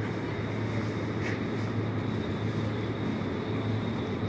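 Steady supermarket background noise: a constant low hum under a rough, even rumble.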